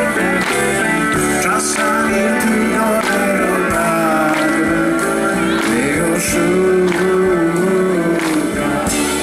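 Live band music: keyboard, electric bass and drums playing under a male voice singing.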